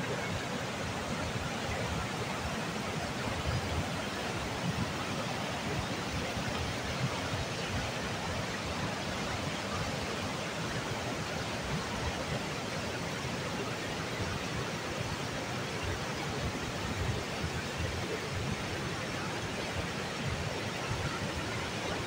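Swollen mountain river rushing over rocks in whitewater rapids: a steady, unbroken water noise.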